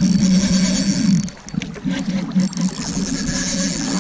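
Fishing reel buzzing under the pull of a hooked, running king salmon. The steady buzz breaks up a little over a second in and then carries on in fits.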